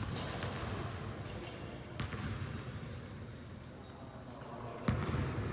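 Two sharp knocks about three seconds apart, the second louder, over a steady background murmur.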